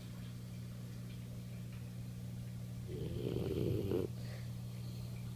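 Boxer puppy snoring in its sleep: one loud snore about three seconds in, lasting about a second, over a steady low hum.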